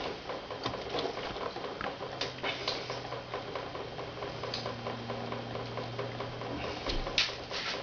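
Drum-type chicken plucking machine running: its rubber plucking fingers patter rapidly against a chicken held in the drum, with scattered sharper clicks. A low steady motor hum sounds through the middle.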